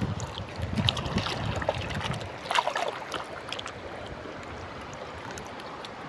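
Hands digging wet sand out of a plastic toy dump truck's bed, with scraping and a few sharp plastic clicks during the first few seconds, over a steady wash of flowing river water. Wind buffets the microphone for the first two seconds or so.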